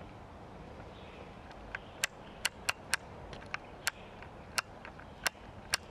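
About ten irregular sharp clicks and snaps, the first about two seconds in, over faint room tone.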